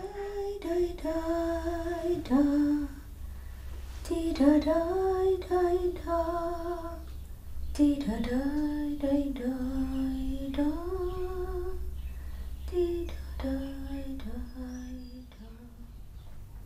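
A woman humming a slow, wordless melody in phrases of long held notes with short pauses between them, over a steady low background hum.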